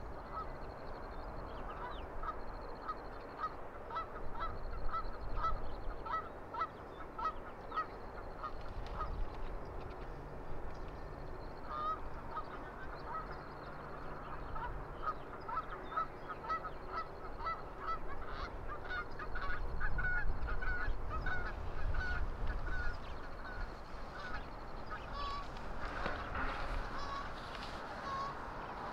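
A flock of birds calling, a dense stream of short, repeated calls that gets busier in the second half. A faint high buzzy phrase repeats every second or two over it.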